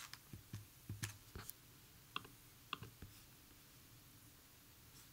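Faint clicks of a computer being operated, about eight of them spread over the first three seconds, as the PowerPoint slide show is closed. After that there is only near silence.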